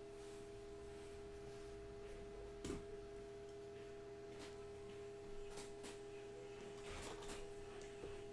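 A steady held tone of several pitches sounding together, with a few faint taps and crinkles as shrink-wrapped hobby boxes of cards are handled.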